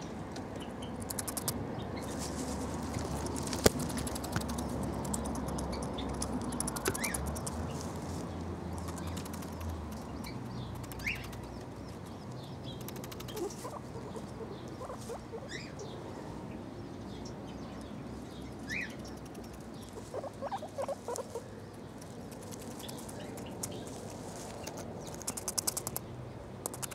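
Guinea pig munching grass right at the microphone: quick runs of crunching clicks as it bites and chews. A few brief high chirps are scattered through.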